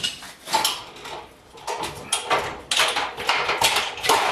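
Steel plate clamped over square tubing being hammered and handled, giving irregular sharp metallic clanks and knocks that come thicker in the second half, as the plate is worked into a 90-degree fold.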